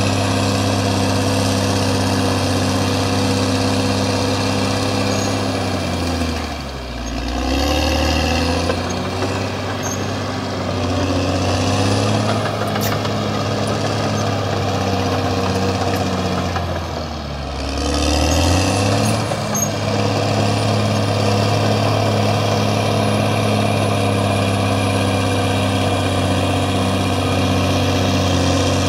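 CAT D6R XL bulldozer's diesel engine running steadily at high revs, its pitch twice sagging for a second or two and climbing back, about ten seconds apart.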